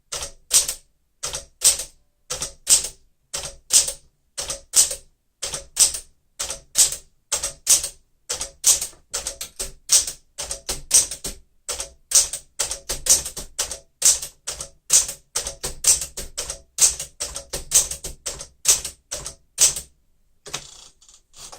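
1963 Smith-Corona Sterling manual typewriter typing, its keys and typebars striking the platen in a steady run of about two to three strokes a second. The keystrokes stop about 20 seconds in.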